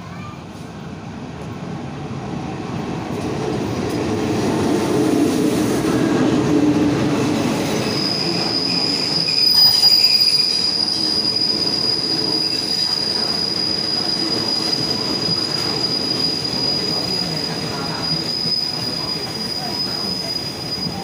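A State Railway of Thailand passenger train's coaches rolling past on the near track, growing louder over the first few seconds into a steady rumble. A steady high-pitched squeal from the running gear sets in about eight seconds in and holds.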